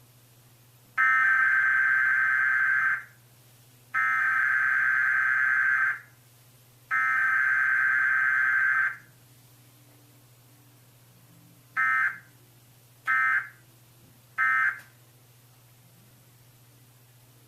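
Emergency Alert System digital (SAME) data bursts: three two-second header bursts about a second apart, then, after a pause, three short end-of-message bursts.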